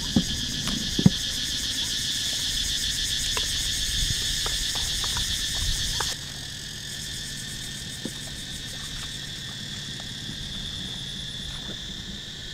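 A dense, steady chorus of insects and frogs from the wet fields, which drops in level about six seconds in. A few low knocks come in the first second.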